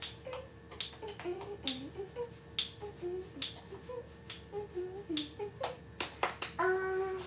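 A dozen or so sharp, irregularly spaced clicks and taps from kitchen work, with faint short pitched sounds between them and a brief tone near the end.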